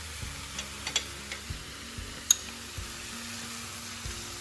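Corn, onion and tomato mixture sizzling steadily in butter in a hot kadhai, with a few light clicks and taps, the sharpest about two seconds in.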